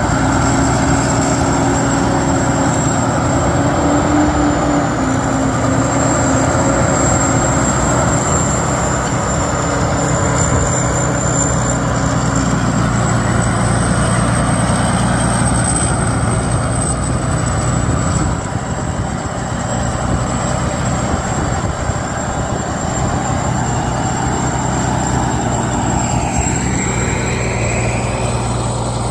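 Rice combine harvester's diesel engine running steadily under load, with a thin high whine over it and a rising sound near the end.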